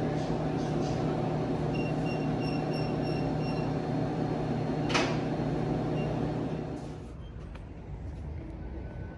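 Subway train running with a steady mechanical hum. A string of short high beeps comes about two seconds in, and a single sharp knock comes about five seconds in. The hum falls away near the end.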